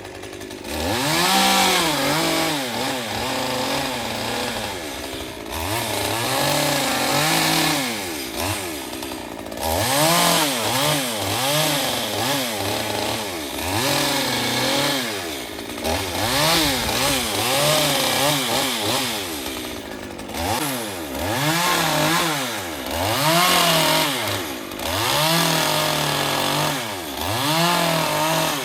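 Chainsaw engine revving up and down over and over, about once every two seconds, while cutting palm fronds.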